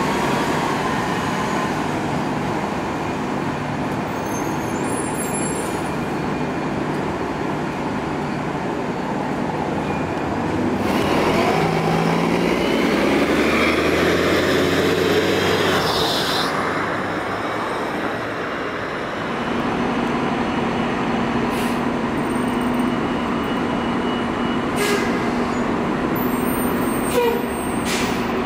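City transit bus pulling away and passing close, its engine and drive rising in pitch as it accelerates. Afterwards another bus idles with a steady low hum, with a few short sharp sounds near the end.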